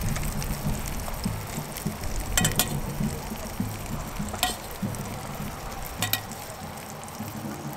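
Sausages frying in a pan on a Trangia Mini camping stove, sizzling steadily. A utensil clicks and scrapes against a small metal frying pan a few times as cooked mushrooms are lifted out.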